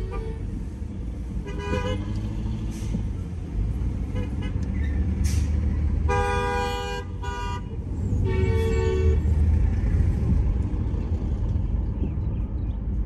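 Car horns honking in street traffic over a steady low rumble of road and engine noise: a short honk just under two seconds in, a longer honk about six seconds in followed by a quick second tap, and another honk near nine seconds.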